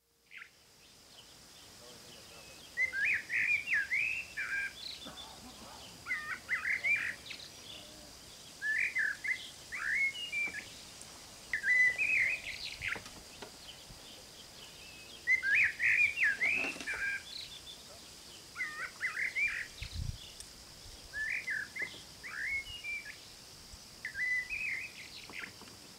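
A songbird singing short, similar warbled phrases over and over, with brief pauses between them, over a faint steady hiss.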